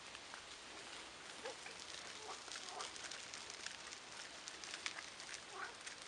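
Faint outdoor ambience: a steady hiss with a run of light, scattered ticks in the middle and a few short, faint calls.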